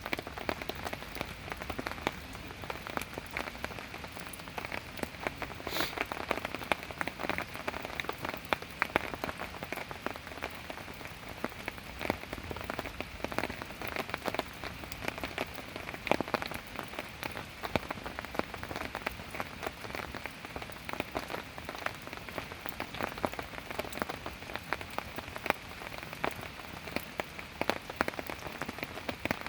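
Steady rain falling on a surface, with many irregular sharp taps and pops scattered throughout.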